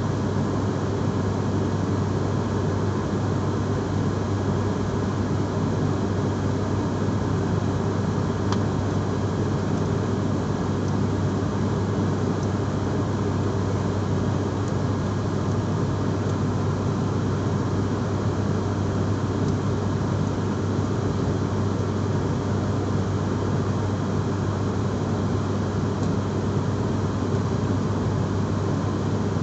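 Airplane engines running steadily: a constant low drone under a rushing hiss, with no change in pitch or level.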